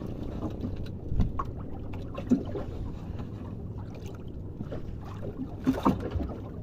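Steady low rumble aboard a small fishing boat at sea, with a few brief knocks, one a little over a second in and a couple near the end.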